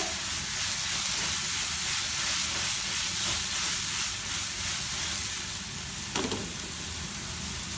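Chopped onions sizzling steadily as they sauté in oil in a non-stick frying pan over a high gas flame.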